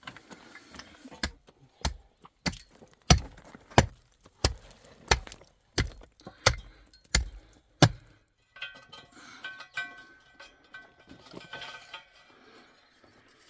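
About eleven sharp, evenly spaced strikes of a hand tool on masonry, roughly one every two-thirds of a second. Then quieter scattered clinks and scraping follow.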